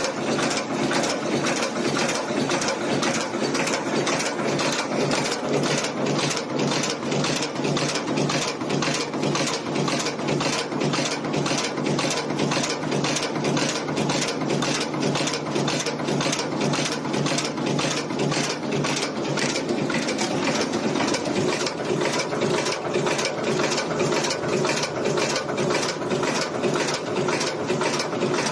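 Cold heading machine making aluminum welding nails, running continuously with an even, rapid clatter of strokes, roughly three a second.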